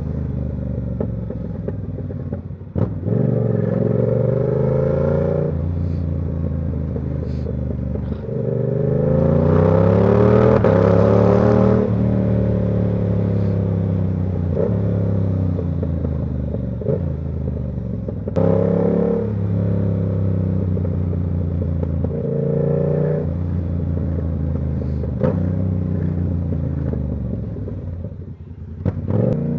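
Yamaha R7's 689 cc parallel-twin engine through a Ko Lightning aftermarket exhaust, pulling through the gears: the pitch climbs, drops at each gear change, and climbs again. The hardest and loudest pull comes about a third of the way in, and the revs fall away briefly near the end before picking up again.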